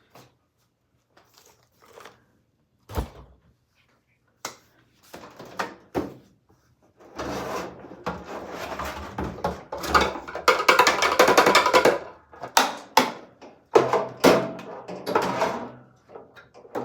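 Handling noise: a few separate knocks and thuds, then from about seven seconds in a long stretch of irregular scraping, rustling and clattering as things are moved about.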